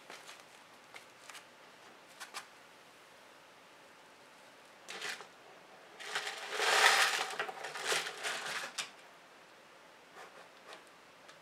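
Thin plastic bottle being picked up and tipped, its plastic crinkling and the grain bait inside sliding and rattling out, loudest for about three seconds past the middle. Light clicks and scratches come before and after it.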